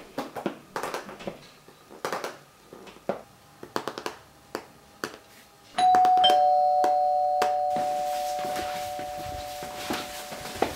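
Typing on a laptop keyboard, an irregular run of key clicks, then about six seconds in a two-note ding-dong doorbell chime, a higher note followed by a lower one, ringing out slowly over several seconds.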